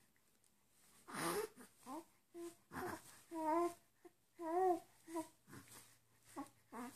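A young infant cooing and babbling: a string of short, sing-song vocal sounds with wavering pitch, with a breathy outburst about a second in.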